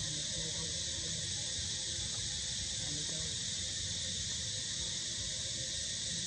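Steady, continuous high-pitched insect chorus of the forest canopy, unchanging throughout, over a faint low rumble.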